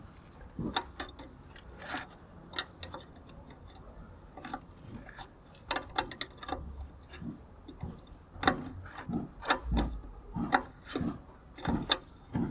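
Hand tools working on metal brake parts: irregular sharp metallic clicks and taps, about one or two a second, with a couple of dull low thumps.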